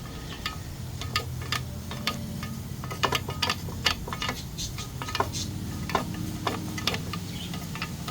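Irregular sharp clicks and light knocks of a pressure-washer hose being pushed and worked into a car's exhaust pipe, over a low steady hum.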